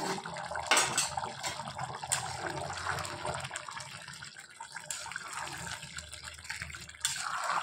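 Rice and chicken simmering in broth in a pressure-cooker pot, bubbling, while a spatula stirs through it with a few knocks against the pot.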